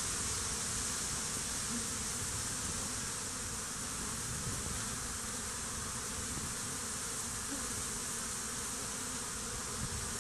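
Steady buzzing of a crowd of honey bees swarming over a stump. The bees are agitated and seem to be fighting among themselves.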